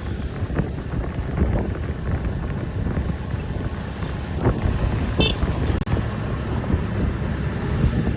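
Steady low rumble of a road vehicle on the move, with wind buffeting the microphone.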